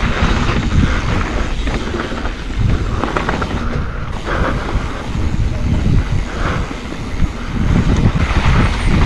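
Mountain bike descending rough dirt singletrack: tyres rumbling over the ground and the bike rattling and knocking over bumps, with wind buffeting the microphone.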